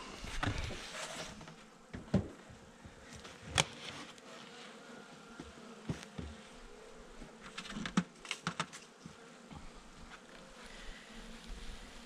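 Honeybees buzzing around an opened beehive, broken by several sharp knocks and clicks as the hive's roof is lifted off and the wooden box is handled.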